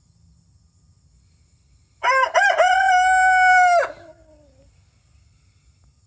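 Rhode Island Red rooster crowing once, about two seconds in: two short clipped notes, then a long held note that drops off into a brief falling tail.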